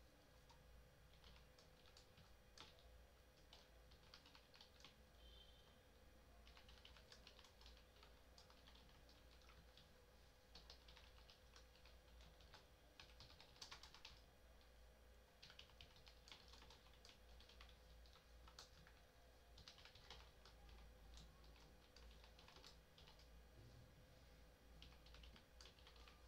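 Faint typing on a computer keyboard, in irregular runs of keystrokes with short pauses, over a steady low electrical hum.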